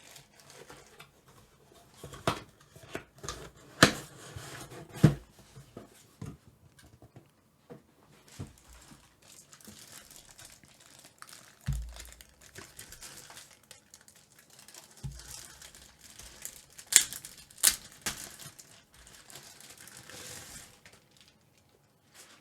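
Packaging being handled during an unboxing: plastic wrapping crinkling and rustling, with scattered clicks and knocks and a few dull thuds as parts are unwrapped and set down.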